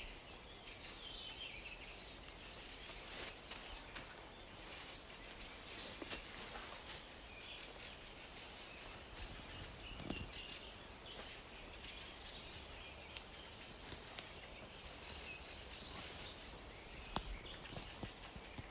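Birds chirping faintly here and there over a steady hiss of outdoor background noise, with a few sharp clicks scattered through.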